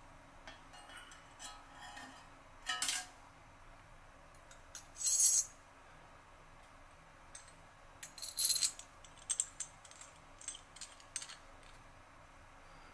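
Scattered small metal clicks and clinks from changing the blade of a Merkur 34G two-piece double-edge safety razor, with the used blade dropped into a blade bank. Short louder scraping bursts come about 3, 5 and 8 seconds in, and a run of quick small clicks follows.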